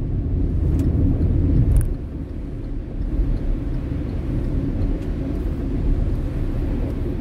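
Road noise inside a moving car's cabin on a rain-soaked road: a steady low rumble of the tyres and drivetrain, with two brief faint ticks about one and two seconds in.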